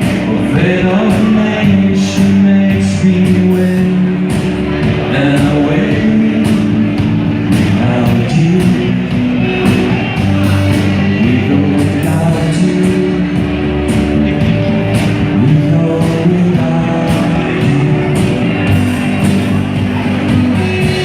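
Rock band playing live: singing over a full band with drums, the cymbal and drum hits keeping a steady beat.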